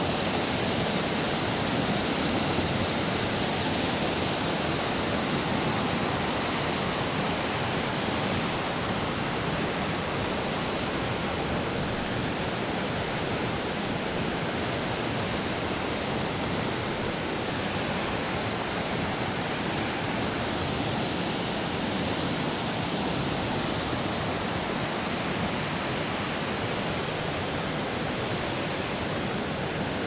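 Creek running high and fast, rushing and churning over rocks in whitewater just below: a steady, loud rush of water.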